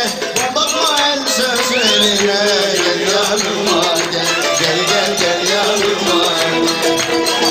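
Dance music: a melody line over dense, steady percussion.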